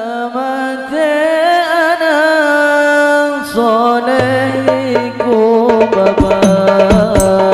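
Shalawat devotional music. A held, wavering melody opens it, and about three and a half seconds in, hand drums come in with quick strokes over a steady bass.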